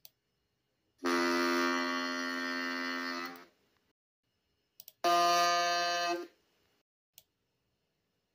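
Two separate ship horn blasts: a long steady one of about two and a half seconds, then a shorter one of just over a second, each a rich, steady chord-like tone. Small clicks fall between them.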